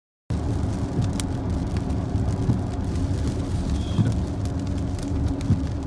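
Vehicle engine rumble with heavy rain falling, and scattered light clicks and knocks; the sound cuts in suddenly just after the start.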